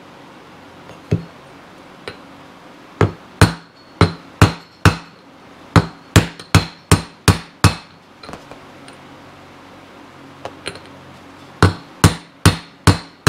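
Hammer tapping a wheel bearing into a Yamaha Twin Jet motorcycle's front wheel hub, sharp metallic strikes with a short ring. The taps come in uneven groups with a lull in the middle, then a quick run of about three taps a second near the end as the bearing is driven home.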